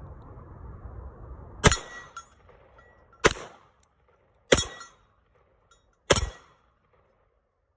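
Four handgun shots fired one at a time, about a second and a half apart, each a sharp crack with a short echo.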